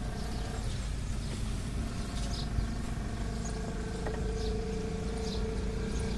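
A steady engine hum from a motor vehicle, growing a little stronger about halfway through, with short high chirps about once a second.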